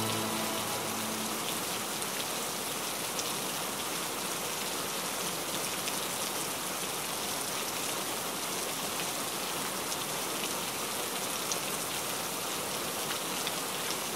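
Steady heavy rain: a dense, even hiss with scattered drop ticks. Soft background music fades out during the first second or two.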